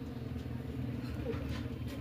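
Steady low mechanical hum, like a motor running in the background, with no distinct clicks or knocks.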